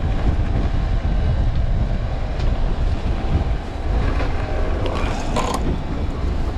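Strong wind rumbling on the microphone over the steady whine of a boat's net hauler drawing a gill net aboard. A few sharp knocks come about five seconds in.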